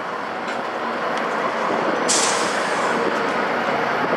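Canadian Pacific freight train rolling on the rails: a steady rumble of wheels on track that grows gradually louder, with a brief high hiss about two seconds in.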